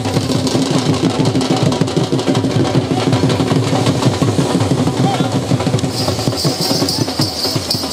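Ground firework fountains going off together: a dense, continuous crackle of rapid irregular pops with a steady low hum underneath, and a high hiss that grows louder about six seconds in.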